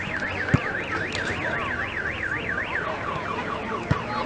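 Electronic alarm or siren sounding a rapid rising-and-falling warble, about four sweeps a second, fading out about three seconds in. Two brief thumps are also heard.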